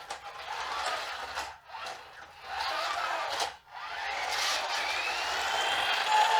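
A battery-powered toy's small motor and gears whirring, with faint gliding tones over it. It drops out briefly twice.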